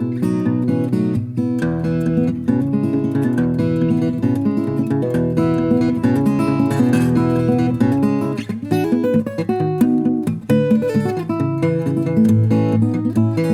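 Daniel Halleron Model FS acoustic guitar, with an Italian spruce top and New Guinea rosewood back and sides, played fingerstyle. Bass notes and melody are plucked together in a busy, continuous passage.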